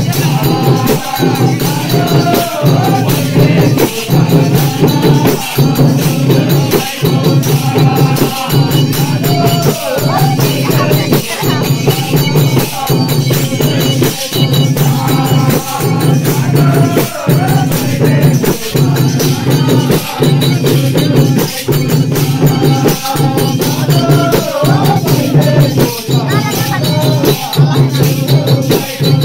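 Nepali chudka folk song playing loud: a sung melody over a steady, evenly repeating beat.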